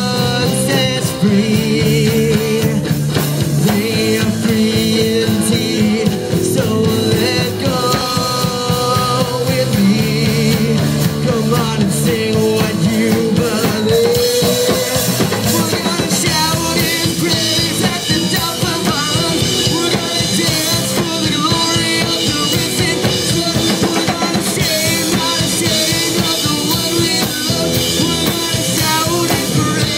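Live rock band playing loudly: electric guitars, bass and a drum kit, with a lead singer singing into a microphone.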